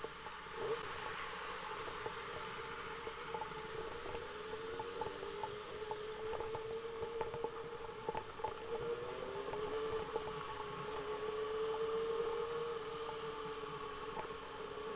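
Motorcycle engine running steadily while riding, its note dipping a little around nine seconds then rising again, with wind noise on the microphone.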